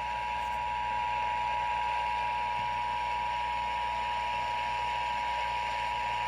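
Emergency Alert System attention signal: two steady tones sounding together, unbroken, over FM radio with a hiss of static behind it. The signal announces that an emergency alert message is about to be read.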